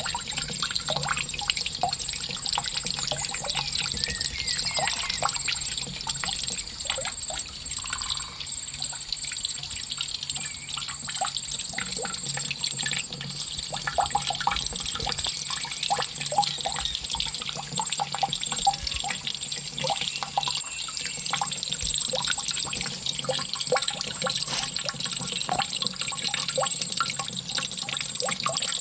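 Water trickling and dripping steadily, with many small irregular splashes. A thin, steady high-pitched tone runs underneath.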